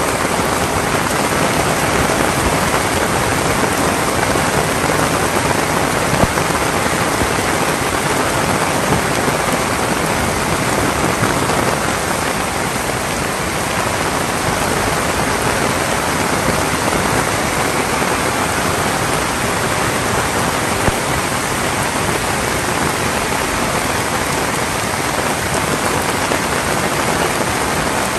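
Heavy rain falling steadily, a dense, even hiss of drops, with a few single louder drop hits.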